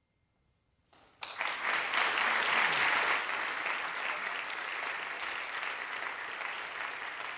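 Audience applauding, breaking out suddenly about a second in after near silence, loudest early on the swell and easing slightly.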